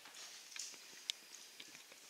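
Faint clicks and taps from a month-old Czechoslovakian wolfdog puppy nosing and mouthing a small toy, with one sharper click about a second in, over a faint hiss.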